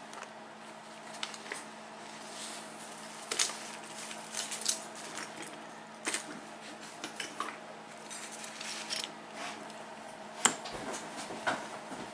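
Scattered light metallic clicks and clinks as the top pins and springs are taken out of an ABUS 72/40 brass padlock body, with the sharpest click about ten seconds in.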